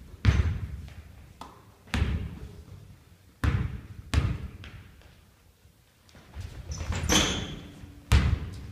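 Basketball bounced slowly on a wooden gym floor, four single bounces a second or more apart, each echoing through the hall. About seven seconds in comes a sharper, ringing knock, then one more bounce near the end.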